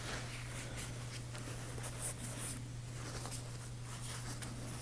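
Faint scratching and rustling as small knife parts are handled on a work surface, over a steady low electrical hum.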